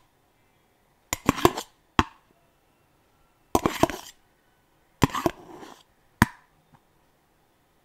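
Spoon and dishes clinking and scraping as food is served, in about five short bursts with silence between.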